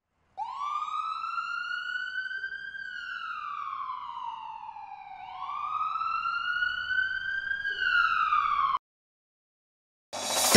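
A siren wailing in two slow rise-and-fall sweeps, growing louder, then cut off suddenly near the end. Music starts right after a short silence.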